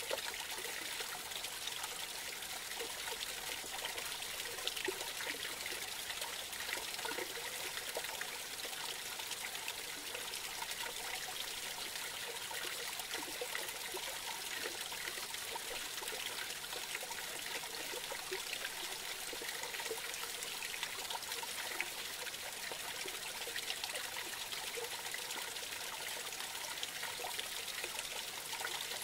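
Small creek trickling over a little cascade: a steady, even water sound that never lets up.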